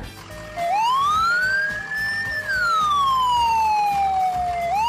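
Police car siren wailing in one slow rise and fall of pitch, beginning to rise again near the end.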